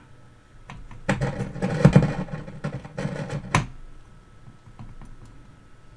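Crackling and scratching from the 1948 Erres KY487 valve radio's speaker as the output valve is wiggled in its socket, ending in a sharp crack about three and a half seconds in, then quieter with a faint steady tone. The crackle is the sign of a dirty valve socket making poor contact, which the restorer suspects.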